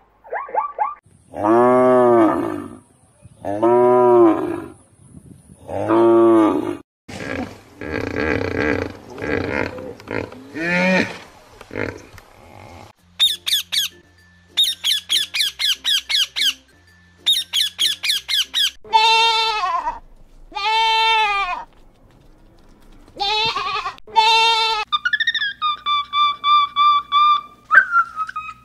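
A string of different animal calls one after another. First come three drawn-out calls, then harsher noisy calls, then rapid, high-pitched chattering from a rainbow lorikeet. More drawn-out calls follow, and a held whistling tone near the end.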